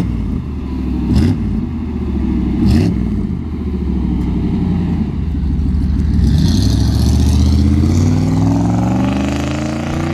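OBS Sierra pickup engine running through a freshly fabricated exhaust: a Cherry Bomb glass pack and a small muffler tip, with the factory muffler cut off. The throttle is blipped twice in the first three seconds, then the revs climb steadily through the second half.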